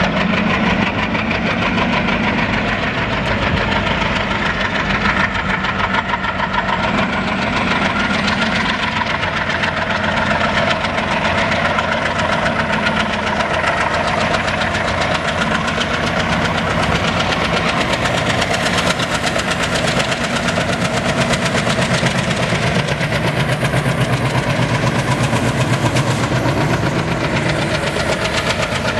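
WDM3A diesel locomotive's ALCO engine chugging under power, a steady, rapid knocking beat.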